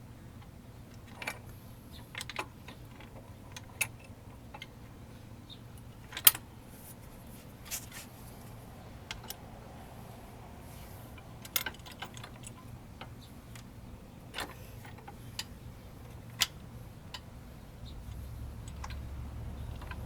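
Scattered metal clinks and knocks from the two halves of a motorcycle's crash bars and their mounting hardware being handled and fitted together, with the loudest knock about six seconds in.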